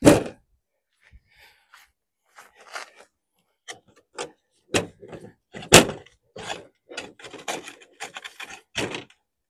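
Knocks, clicks and scrapes from a folding camping table's legs and frame as a leg is adjusted. There is a sharp knock at the start, then a run of knocks from about halfway through, the loudest about six seconds in.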